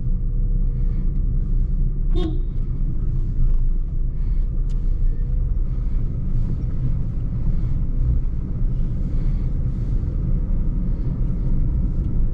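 Steady low rumble of a Toyota Vitz with a 1.0 L three-cylinder engine being driven, engine and road noise together. A car horn toots once, briefly, about two seconds in.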